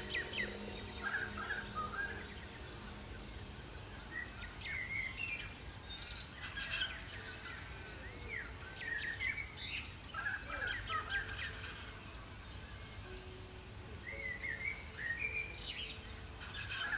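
Birds chirping and calling, many short sweeping chirps one after another, over soft sustained background music.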